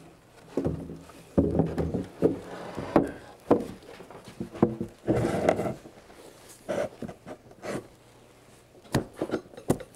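A laminated wood beam being manhandled into place against other timbers: irregular wooden knocks, bumps and scrapes, wood rubbing on wood as it is slid and seated.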